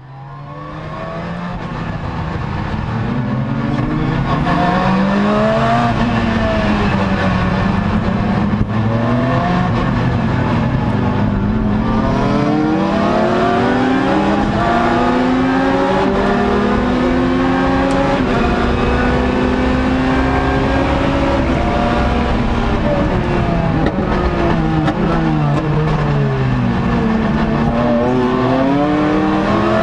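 Lotus Exige race car's engine heard from inside the cockpit at full throttle, revving up through the gears: the pitch climbs steadily, drops sharply at each upshift, then falls away under downshifts before climbing again near the end.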